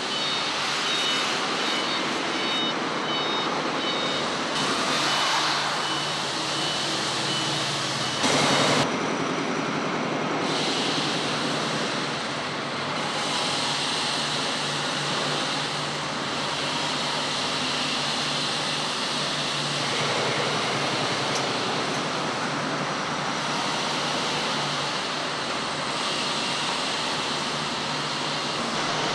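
Steady hum and hiss of warehouse machinery, a forklift and a pallet shuttle at work. A forklift's repeating warning beeps sound for the first three seconds or so, and a brief loud burst of noise comes about eight seconds in.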